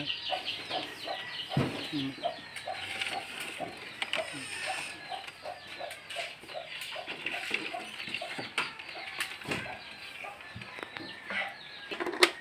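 A hen clucking in a long series of short, evenly spaced notes that fade out about eight seconds in, with a few sharp clicks of plastic bottles being handled.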